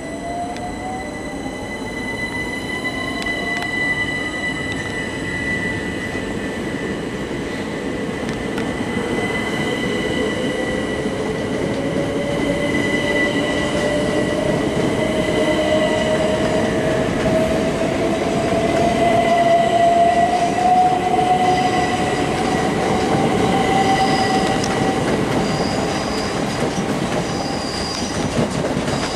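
A 12-car Southern class 377 Electrostar electric train accelerating away from the platform. Its electric traction whine rises steadily in pitch over the rumble of the wheels on the rails, and the sound grows louder as the coaches pass.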